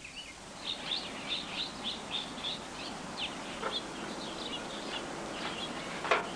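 Birds chirping in a quick run of short high chirps, about three or four a second, thinning out after a few seconds, over a steady background hiss. A sharp knock comes near the end.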